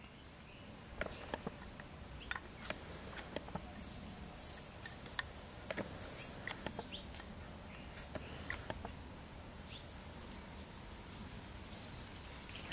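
Forest ambience: a steady high-pitched insect drone, with bird chirps about four seconds in and again near ten seconds, and scattered light clicks and rustles.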